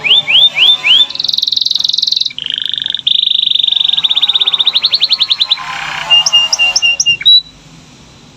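Domestic canary singing: a run of quick falling whistled notes, then long, rapid rolling trills with a higher fast twitter near the end. The song stops abruptly about seven seconds in.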